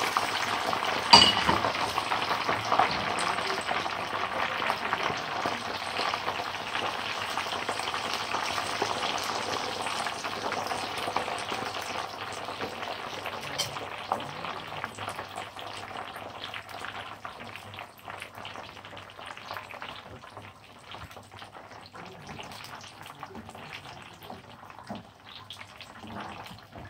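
Freshly added potato chips deep-frying in a pan of hot oil: a dense crackling sizzle, loudest at first and dying down gradually. A utensil knocks once about a second in.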